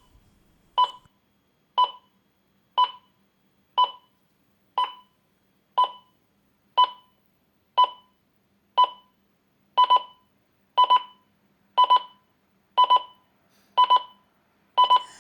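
Hyundai H-RCL246 clock radio's standard alarm beeping, one short electronic beep about every second. About ten seconds in it switches to quick double beeps, the alarm growing more insistent the longer it goes unanswered.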